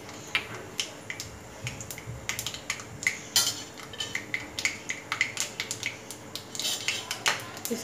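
Whole spices crackling in hot oil in an aluminium kadhai, with a spoon clinking against a bowl as more spices are tipped in. It is a run of many small, irregular clicks and ticks.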